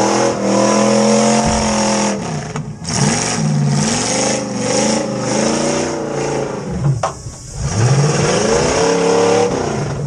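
Demolition derby car's engine revving hard from inside the gutted cabin. It holds steady for about two seconds, then revs up and down several times in quick succession, with a longer climb near the end.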